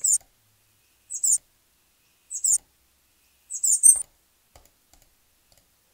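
A recorded birdsong sample (birds.wav) played from a p5.js sketch in restart mode: each mouse click cuts it off and starts it over, so only four short, high chirps are heard, about a second apart.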